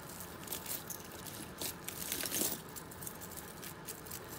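Pieces of costume jewelry clinking and rattling as they are handled, with a scatter of light metallic clicks that gets busier around the middle.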